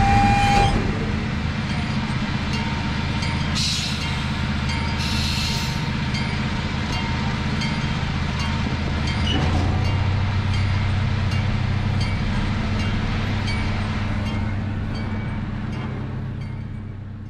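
Miniature zoo train rolling along: a steady engine drone with faint regular clicking from the wheels and two short bursts of hiss a few seconds in. The sound fades out near the end.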